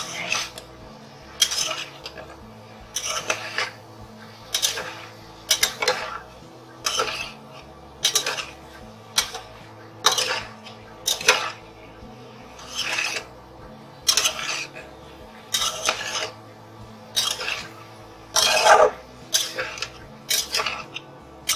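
Wooden spatula stirring cauliflower and potato pieces in a metal pot, scraping and knocking against the pot in a steady run of strokes, one to two a second.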